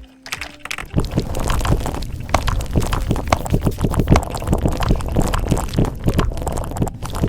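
Fast typing on a mechanical keyboard, a dense run of keystrokes with a deep, muffled sound, starting about a second in.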